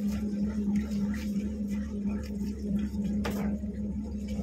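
Steady low hum of an idling fishing boat's diesel engine, with one sharp knock about three seconds in.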